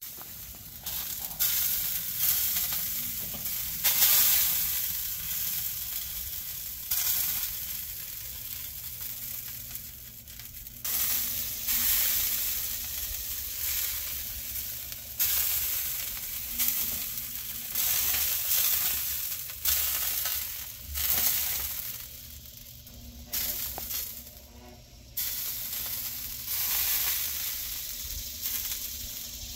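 Brisket drippings sizzling on hot charcoal in an ugly drum smoker. The sizzle surges suddenly and dies away again in irregular waves every second or few.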